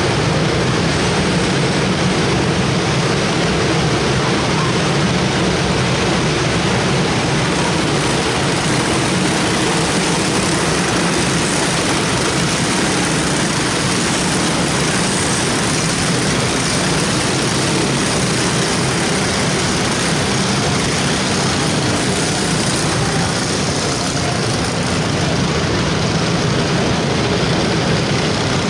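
A field of junior racing karts running laps together, their small engines making a steady, dense drone that echoes around the indoor arena.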